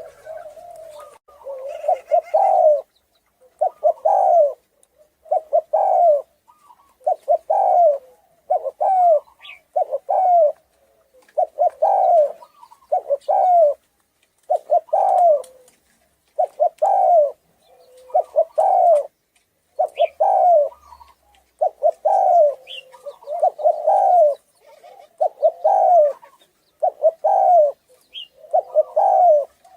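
Spotted dove cooing in the 'thổ rền' style, over and over: short phrases of low coos every one and a half to two seconds, about eighteen in all. A few brief high chirps come between the phrases.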